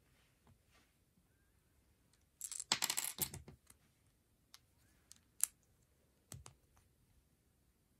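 Plastic Lego pieces clicking and rattling: a dense clatter of small pieces around three seconds in, then a few single sharp clicks as bricks are pressed together onto the model.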